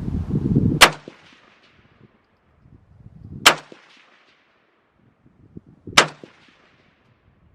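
Palmetto State Armory AK-47 rifle in 7.62×39 firing three single shots, about two and a half seconds apart, at steel targets 200 yards out.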